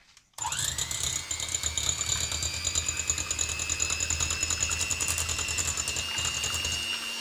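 Electric hand mixer switched on about half a second in, its motor whine rising quickly as it spins up and then running steadily, with a fast rattle from the wire beaters whisking raw eggs in a bowl.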